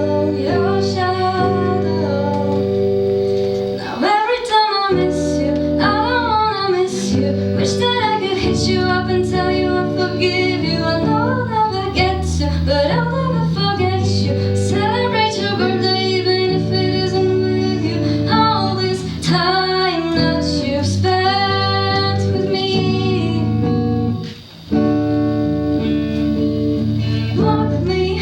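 A female voice singing a song over guitar accompaniment, with a short break in the music near the end.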